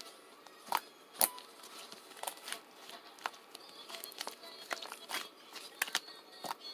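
Irregular light clicks and taps with faint rustling, like small objects being handled, the sharpest clicks about a second in.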